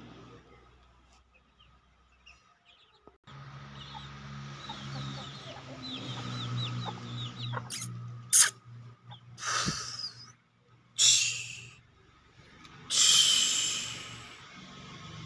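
Aseel chickens, a rooster and a hen, clucking and calling from a few seconds in. Four loud, harsh bursts come in the second half, the longest near the end.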